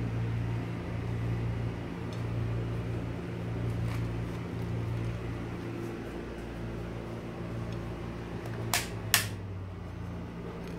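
Steady hum of a running fan motor, with two sharp clicks in quick succession about nine seconds in.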